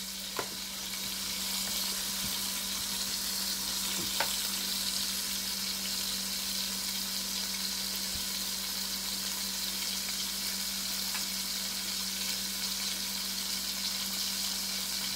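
Seasoned pork chops sizzling in shallow oil in a pot: a steady frying hiss, over a steady low hum, with a couple of light clicks, one about four seconds in.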